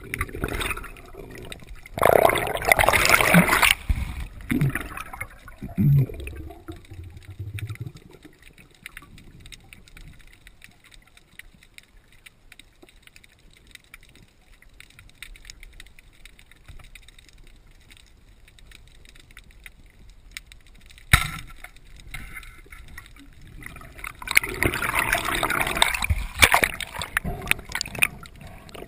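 Water rushing and gurgling around an underwater camera. There are two loud spells, one about two seconds in and one near the end, with a quiet stretch between them broken by a single sharp knock.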